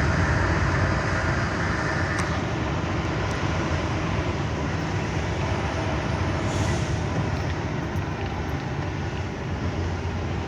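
Truck cab interior while driving: a steady low engine rumble with tyre and road noise.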